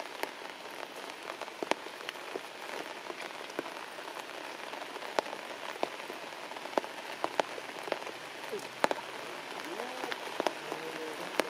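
Heavy rain falling steadily on leaves and grass, with many sharp, separate drop strikes close by.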